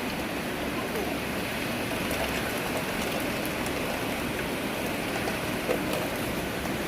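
Steady rain falling, a constant hiss with scattered sharp drop ticks.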